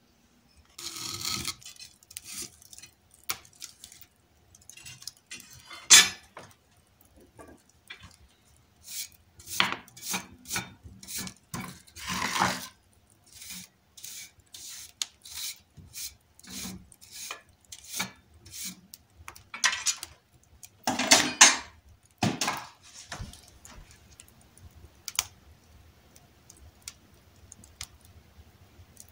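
Knocks, clatter and scraping of things being handled, then, for the last several seconds, a wood fire crackling softly in the firebox of a Russian masonry stove with small scattered pops.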